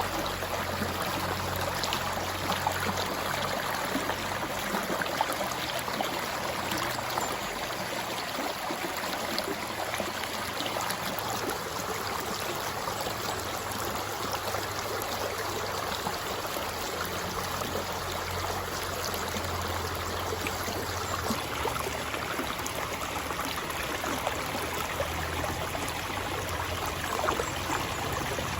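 River water flowing steadily, an even rush with a fine scatter of small splashes throughout.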